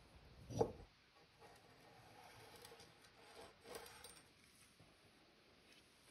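A steel drawknife blade set down on a wooden tabletop with a single knock about half a second in, followed by faint handling and rubbing sounds and a lighter knock a few seconds later.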